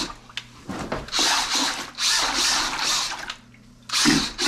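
Cordless drill spinning a paint mixer paddle in a bucket of water, churning and splashing the water to rinse the paint off the paddle. It runs in spells of about a second, with a short pause a little after three seconds and one more brief spin near the end.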